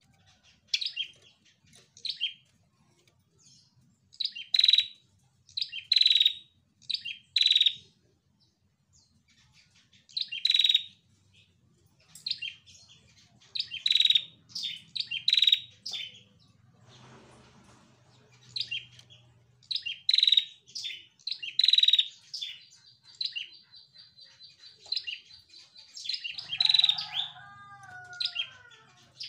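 Female ashy tailorbird (prenjak kepala merah) calling vigorously: repeated sharp, high chirps delivered in quick groups of two to four, with a steadier buzzing trill about two-thirds of the way through.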